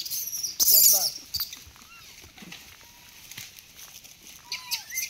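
Rhesus macaques giving short squealing calls, the loudest a brief screech about a second in, with fainter calls later, over a steady high insect buzz.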